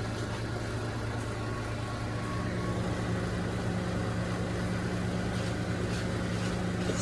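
Microwave oven running, a steady low hum.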